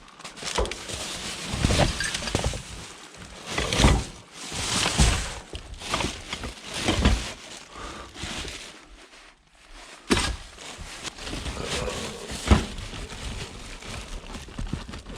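Irregular knocks, thuds and rustling of objects being picked up and handled, with footsteps; a sharp knock about four seconds in and another near the end are the loudest.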